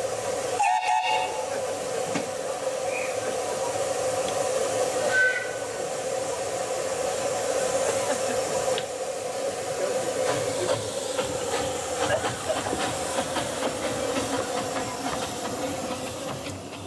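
Narrow-gauge steam tank locomotive hissing steadily as it draws slowly past close by, with steam escaping around its cylinders. A short high tone comes about a second in, and from about halfway on there are many quick clicks and knocks as the engine and coaches pass.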